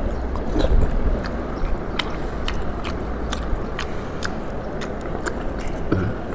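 Close-miked chewing of food in the mouth, with many short wet smacks and clicks at an uneven pace, a few each second.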